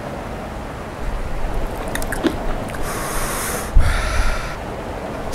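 A man eating a burger, letting out two long, breathy, hissing exhalations through an open mouth in the second half, with a low thump between them.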